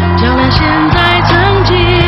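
A woman sings a pop ballad into a microphone, holding and bending her notes, over a band with bass and drum hits.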